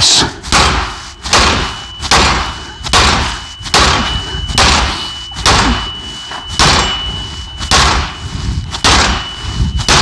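Sledgehammer blows on an OTC hub puller's forcing screw, metal on metal, about a dozen strikes at a steady pace of a little over one a second, hammering to shock a rust-seized rear hub off its CV axle. A thin high ring holds between the blows.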